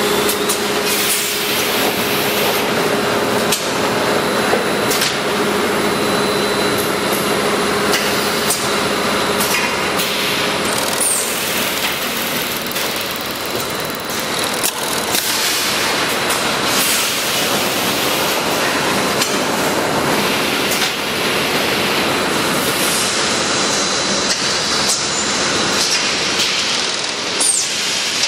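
Automatic bag-filling and sewing packing line running: a steady machine din with frequent clicks and knocks from its clamps and moving parts.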